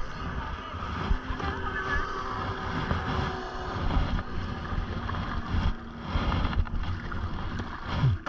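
Canoe paddle strokes dipping and pulling through lake water, with a low falling gurgle near the end, and wind buffeting the microphone.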